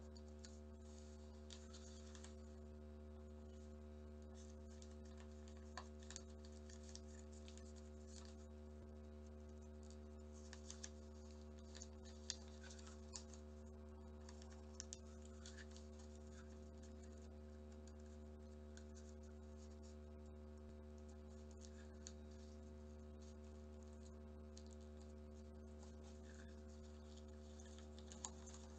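Faint crinkling and soft ticks of origami paper being folded and creased by hand, a few sharper crackles scattered irregularly, over a steady low hum.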